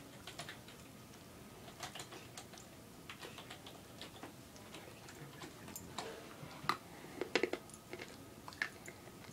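A small dog's mouth working at a cushion or blanket: irregular quick clicks and smacks, with a run of louder ones about seven seconds in.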